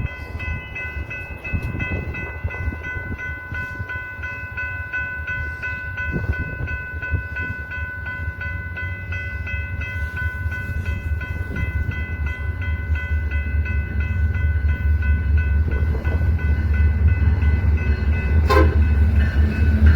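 Railroad crossing warning bell ringing in a quick, even pulse, over the low rumble of a train that grows louder toward the end.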